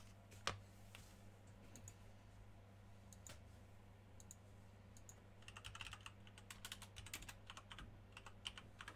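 Faint typing on a computer keyboard, a few scattered keystrokes at first, then a quick run of key clicks over the second half, over a steady low electrical hum.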